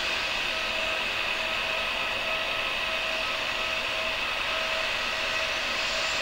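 Steady jet turbine hiss and whine from an Airbus A320 airliner as a tug pushes it back on the apron. The noise is even throughout, with a high hissing band and faint, broken tones underneath.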